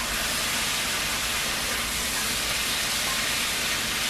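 Baby back ribs sizzling in a pot, frying in their own rendered grease: a steady, even hiss.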